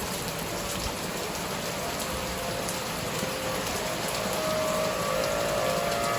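Steady rain falling. About four seconds in, a faint, steady, distant tone comes in over it, the outdoor tornado warning siren sounding.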